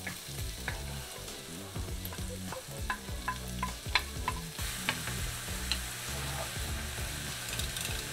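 Clams in their shells tipped from a glass bowl into a hot frying pan, a string of clinks and taps as a wooden spatula scrapes them out, over oil and onions sizzling in the pan. The sizzle thickens about halfway through as the clams hit the hot pan.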